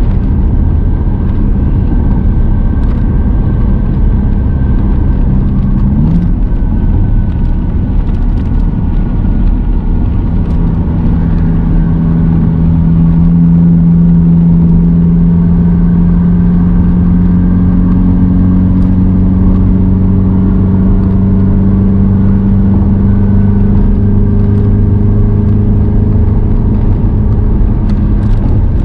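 Car engine and tyre noise heard from inside the cabin while driving at highway speed. About ten seconds in, a louder drone sets in and rises slowly in pitch, as the car picks up speed.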